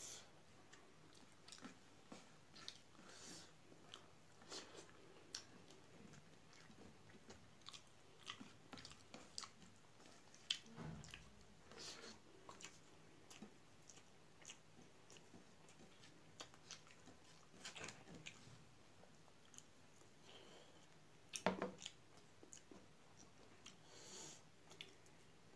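A person chewing mouthfuls of rice with the mouth close to the microphone: soft, irregular wet smacks and clicks, with one louder cluster of smacks late on.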